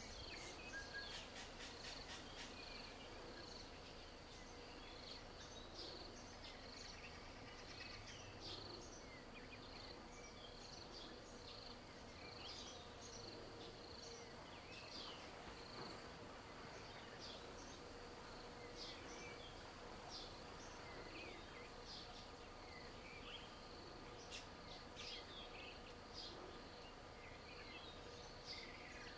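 Faint daytime outdoor ambience: a steady high insect drone, with many short bird chirps and whistles scattered through it.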